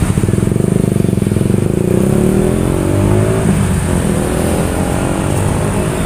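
Motorcycle engine running close by, its pitch rising as it accelerates, then rising again about four seconds in, over steady street traffic.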